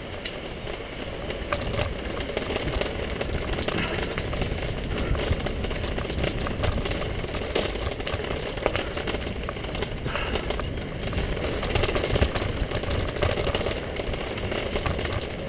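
Bicycle ridden fast over a bumpy dirt and gravel path: a steady rumble of the tyres on the rough surface, with frequent knocks and rattles from the bike.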